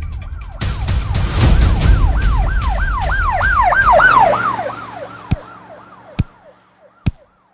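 Ambulance siren in a fast yelp, rising and falling about three times a second over a low rumble. The rumble cuts off a little past halfway and the siren fades out, with three deep thumps near the end.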